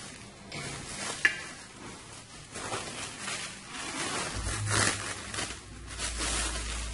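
Packaging being cut and pulled off a new BMX wheel: irregular crinkling and scraping, with a sharp click a little over a second in. A low steady hum comes in just past the middle.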